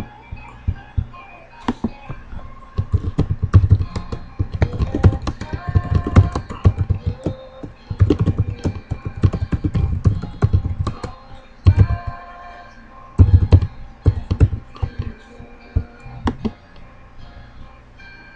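Typing on a computer keyboard: quick runs of key clicks in several bursts, with a pause of about a second in the middle and a few lone clicks near the end.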